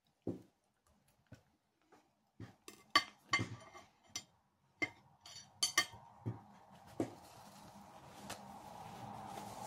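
Metal fork and knife clinking and scraping against a ceramic plate in a series of sharp clicks, ending with the cutlery being set down on the plate. A steady rushing noise slowly builds over the last few seconds.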